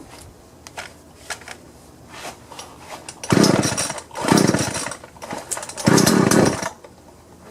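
Husqvarna 120 two-stroke chainsaw being pull-started: after a few seconds of handling clicks, the engine fires in three short bursts of under a second each and stops between them. The recoil starter is now catching, with its pulley spring flipped over so it seats properly.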